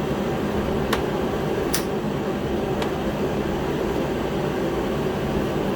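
A heater running with steady fan noise, with a few faint clicks about one, two and three seconds in.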